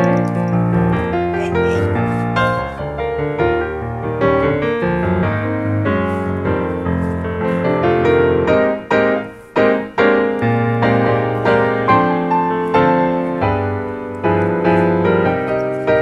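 Background piano music: a melody played over sustained chords, pausing briefly about nine seconds in.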